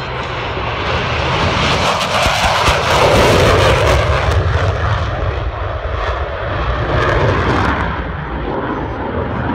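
Military jet engine noise as a jet makes a low pass: a loud rushing rumble that builds over the first couple of seconds, crackles at its loudest, and eases slightly near the end.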